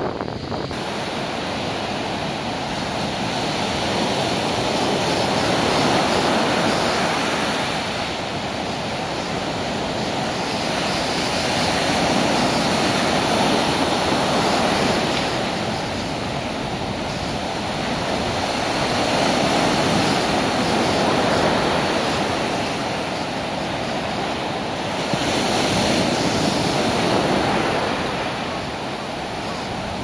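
Rough surf breaking on a sandy beach: a continuous wash of wave noise that swells and eases about every six or seven seconds.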